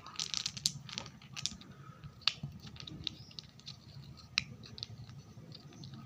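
Mothballs and their packaging being handled: irregular light clicks, rattles and scratchy rustling, strongest in the first second and a half.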